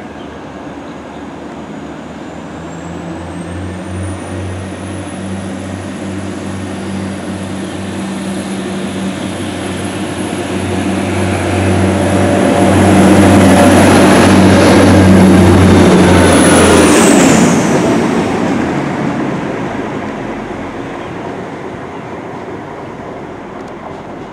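Class 175 Coradia diesel multiple unit departing and passing close by: a low diesel engine hum builds to its loudest as the train goes past, with a high whine that drops sharply in pitch as it passes, then fades into the distance.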